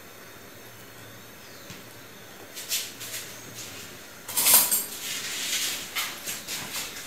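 Metal spoon scraping and knocking against a plastic tub while mashing bread soaked in hot water, a run of short scrapes from about halfway in.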